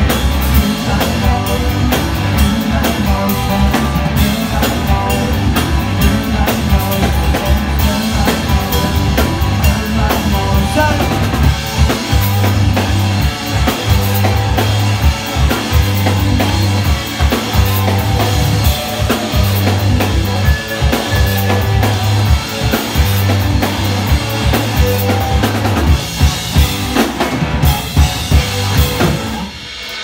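A live rock band playing: two electric guitars over a drum kit with kick and snare, loud and continuous, stopping suddenly just before the end.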